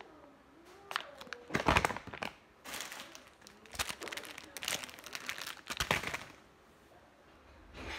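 Clear plastic zip-lock bags crinkling in several short bursts as squishy toys packed in them are handled.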